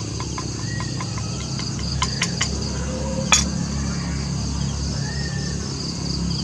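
Night crickets chirping steadily over a low steady hum. A few light clicks of a spoon and fork against the dishes come about two seconds in, with a sharper click just after three seconds.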